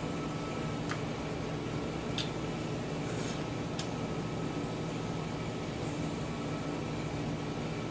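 A person eating noodles with chopsticks: a few short, sharp slurps and mouth clicks scattered over a steady background hum.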